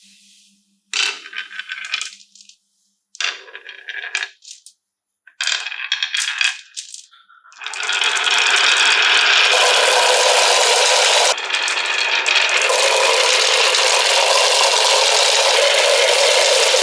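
Marbles rattling and clattering down a wooden HABA marble run track: three short spells of clatter, then from about eight seconds in a continuous busy rattle, as of many marbles running at once.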